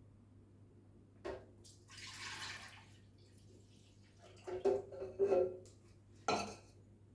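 Freshly squeezed orange juice being poured, a short hiss of liquid, among several knocks and clinks of kitchenware, the loudest a cluster of ringing knocks about two thirds of the way through.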